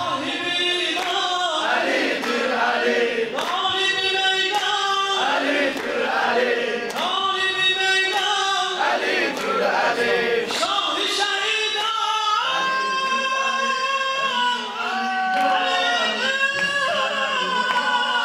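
Several men singing a devotional chant together into microphones, a lead voice with others joining in, in the style of an Azerbaijani religious mersiye sung in praise of Ali.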